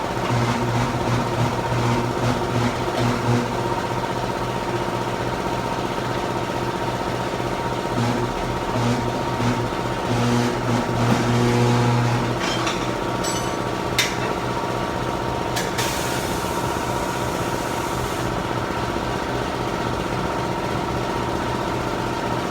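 Machine-shop machinery running with a steady mechanical hum. A deeper hum comes and goes twice, as if a motor is taking up load. Two sharp clicks and a short hiss come past the middle.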